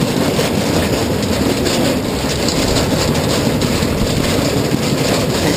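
Roller coaster train climbing its chain lift hill: a steady clattering rattle of the lift chain and car.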